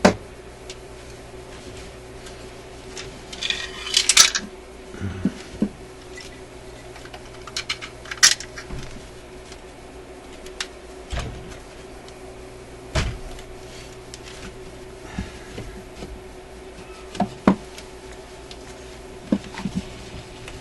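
Tube radio chassis being tipped up and shifted on a workbench: scattered knocks and clicks of metal and wood with a brief scrape about four seconds in, over a faint steady hum.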